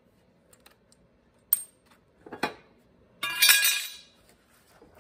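Steel mower blade and its hardware clinking and clattering against the steel mower deck as the loosened blade is taken off the spindle: a sharp click about a second and a half in, a couple of light clinks, then a longer metallic scraping clatter just past the middle.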